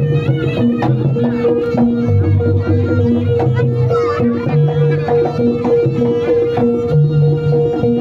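Live East Javanese jaranan ensemble music: quick hand-drum strokes over low, slowly changing hanging-gong tones. A steady held note and a wavering high melody line run above them.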